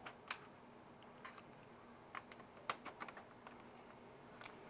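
Faint, scattered light clicks of hands checking fan and cable connectors inside a PC case, over a faint steady hum.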